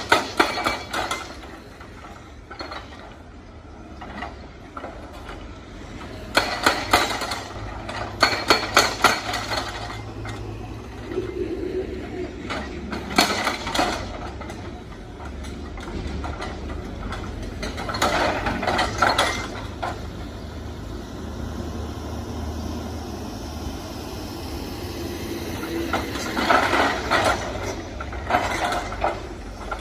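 Hydraulic breaker on a SANY crawler excavator hammering stone in short bursts of rapid blows, each a second or two long, several times over. Between bursts the excavator's engine runs with a steady low rumble.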